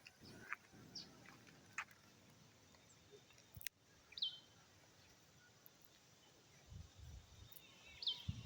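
Quiet rural ambience in which a bird gives a short, high, descending chirp now and again, with a few faint clicks.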